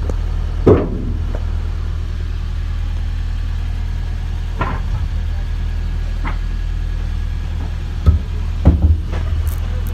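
A steady low engine hum, like a vehicle idling, with a few short knocks scattered through it.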